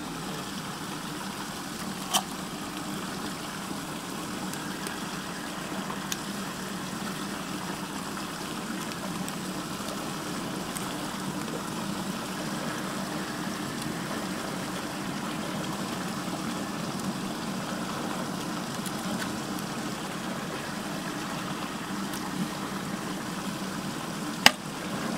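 Water swirling steadily down a whirlpool drain hole, a constant rushing with a low steady hum under it. A sharp click about two seconds in and a louder one near the end.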